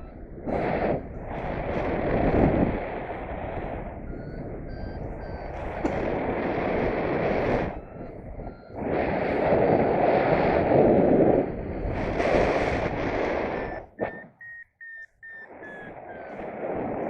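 Wind rushing over the microphone in flight, rising and falling in gusts, with a variometer beeping faintly underneath in short tones that glide up and down in pitch. About fourteen seconds in, the wind noise drops away for a second or so and a run of quick vario beeps is heard plainly.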